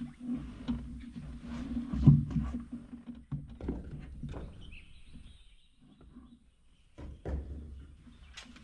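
Kobelco excavator's diesel engine running at a low idle, with a few sharp knocks and clatters; the loudest knock comes about two seconds in and another near the seventh second. The engine hum weakens after about three seconds.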